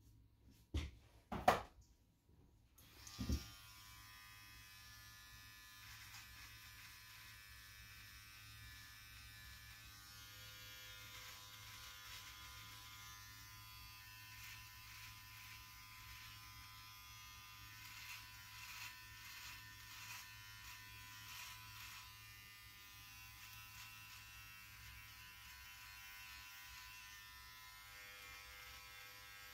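Electric hair trimmer switched on and running with a steady buzz as it edges a beard along the neckline. A few sharp knocks come in the first three seconds, before the buzz starts.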